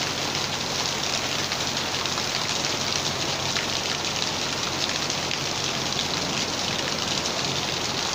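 Steady heavy rain falling and splashing on hard surfaces, a dense even hiss with fine drop ticks.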